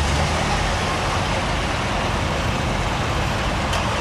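V8 engines of a line of Corvette convertibles, with a police motorcycle among them, running at low speed as the cars creep forward: a steady low engine rumble.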